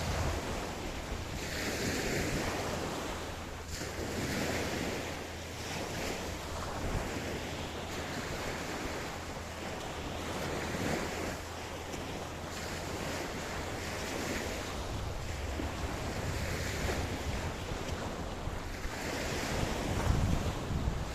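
Ocean waves breaking and washing up on a beach, the surf swelling and easing every few seconds, over a low steady rumble of wind on the microphone.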